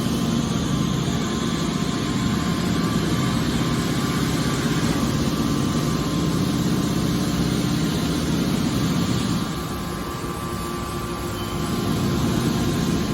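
Hydraulic scrap metal baler's power unit running with a steady mechanical hum, easing off slightly for a couple of seconds about ten seconds in before coming back up.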